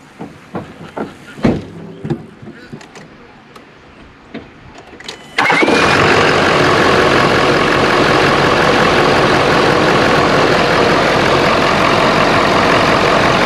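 Ford 6.7-litre Power Stroke V8 turbodiesel starting up suddenly about five seconds in, after a few faint clicks and knocks, then idling steadily and loudly. It is heard close up with the hood open, on its first start after the cold-side intercooler charge pipe was replaced.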